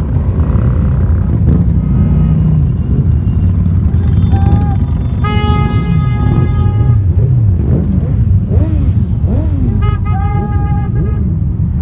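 Motorcycles and scooters riding slowly past in a procession, engines running with some revving. A horn is held for nearly two seconds about five seconds in, and another horn sounds for about a second near the end.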